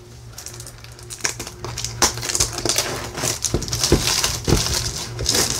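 Plastic wrapping crinkling and crackling as it is pulled off a sealed card booster box, with scattered taps and rustles from handling the box. The crinkling gets busier about two seconds in.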